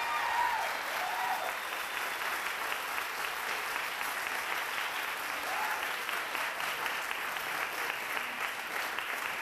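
Theatre audience applauding steadily, with a few voices cheering near the start and once midway.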